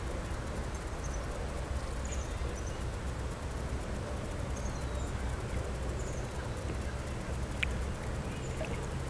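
Steady low outdoor rumble on open water, with faint short bird chirps scattered through it and a single sharp click a little before the end.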